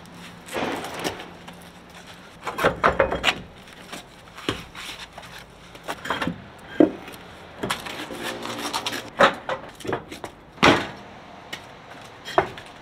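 Irregular knocks, clunks and rubbing of hand work on a truck, with a short creak about eight seconds in.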